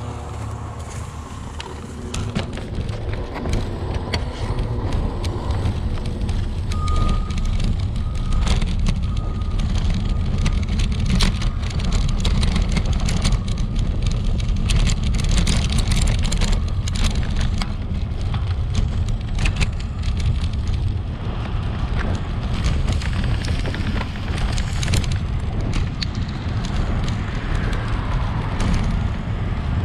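Bicycle riding over a rough, rutted dirt and gravel road: steady wind and tyre rumble on the microphone, with frequent rattles and knocks from the bike over bumps. The knocks thin out near the end as the ride reaches smoother pavement.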